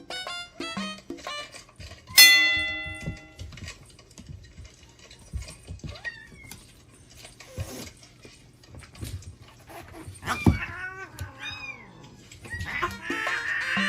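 Kitten mewing repeatedly in short, high calls that rise and fall in pitch, with a single loud bell-like chime ringing out about two seconds in.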